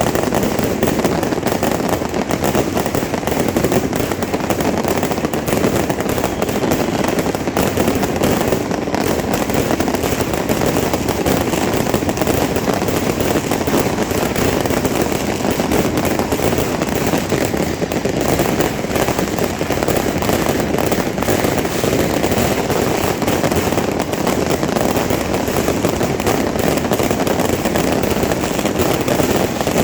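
Fireworks and firecrackers crackling in a dense, unbroken stream of rapid pops, loud and steady throughout.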